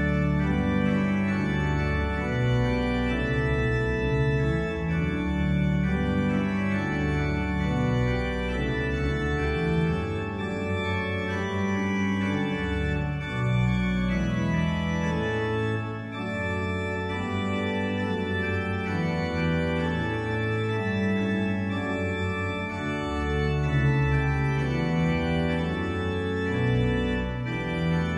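Organ playing slow, sustained chords, each held for a second or two before moving on.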